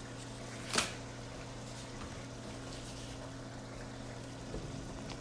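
Sauce for sesame chicken simmering in a stainless sauté pan, a faint steady bubbling as it cooks down and thickens, over a low steady hum. One short sharp tap a little under a second in.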